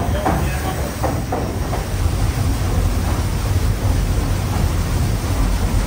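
Paddle steamer Waverley under way at cruising speed: the steady low rumble and hiss of its steam machinery and churning paddle wheels.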